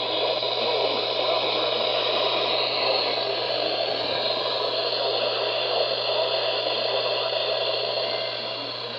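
NOAA Weather Radio reception with no programme audio: steady radio static hiss over a low hum, easing off slightly near the end.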